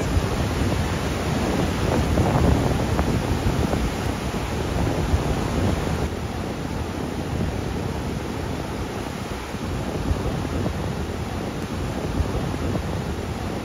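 Surf washing in and foaming over a rocky shore, a steady rush of water, with wind rumbling on the microphone.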